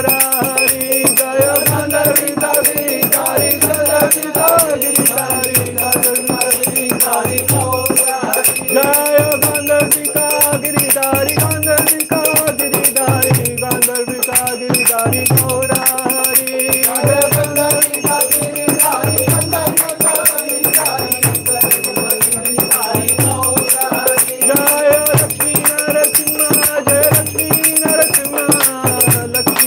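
A small hand bell rung continuously during an arati offering, over devotional music with rapid rattling percussion, regular low drum beats and a sustained, wavering melody.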